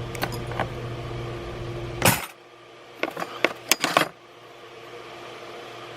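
Metal hand tools clinking and clanking as they are handled and set down from a toolbox: a few light clicks, one loud clank about two seconds in, then a quick run of clinks about a second later.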